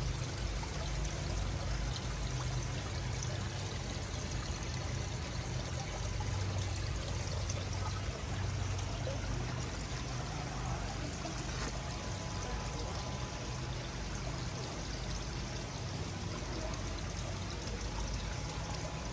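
Steady running water, pouring and trickling into a koi pond.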